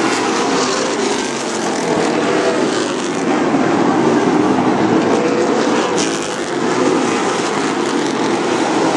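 Late model stock cars racing around a short-track oval, the engines of the leading pack running together in a loud, steady drone that swells and eases slightly as they pass.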